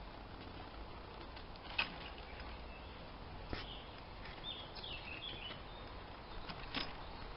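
Logs of firewood knocking against each other and the cart as they are loaded into a dog cart's basket: three sharp knocks a second and a half to three seconds apart, the first the loudest. Birds chirp faintly around the middle.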